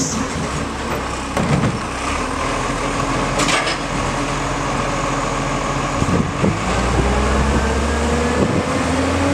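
Dennis dual-control waste truck running as it moves along the street, a steady engine drone with a couple of clunks; the engine note rises slowly over the last few seconds.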